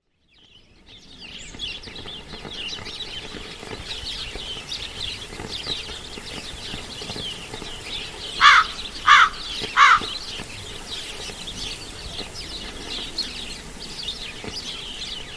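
Many small birds chirping together in a dense chorus, fading in at the start. About halfway through, a larger bird gives three loud, short calls in quick succession.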